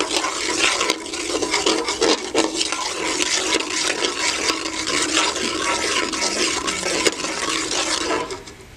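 Metal perforated skimmer stirring and scraping spices frying in ghee around a metal karahi, with many quick clicks of metal on metal over a hiss; the stirring stops near the end.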